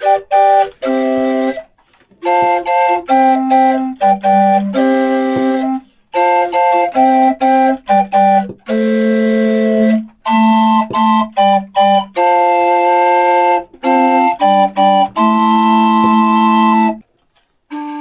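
Small 3D-printed organ with stopped wooden-style Gedeckt flue pipes playing a series of chords, some short and some held for a second or more, with a brief pause near the end. It has a soft, flute-like tone, and the pipes are still unevenly voiced.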